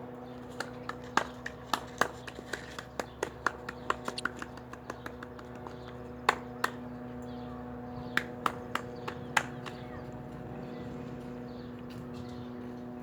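Quick, irregular clicks and taps from dogs' claws and paws on a hard surface as the dogs move about. The clicks are dense at first, thin out after about five seconds and stop before ten seconds. A steady hum runs underneath.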